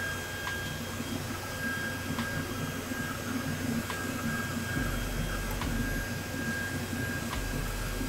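Steady whirring hum of computer cooling fans running, with faint ticks about every second and a half.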